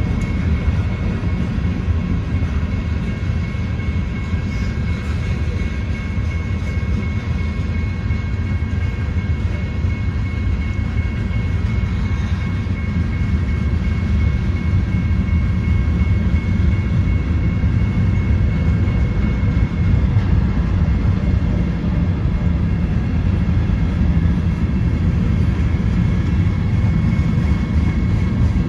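Train cars rolling past a grade crossing: a steady low rumble of wheels on the rails, with a faint steady high tone over it.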